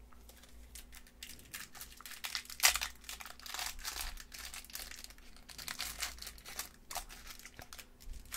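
Foil wrapper of a trading-card pack being torn open and crinkled in the hands, a dense crackle of small clicks with one sharp louder crackle about two and a half seconds in.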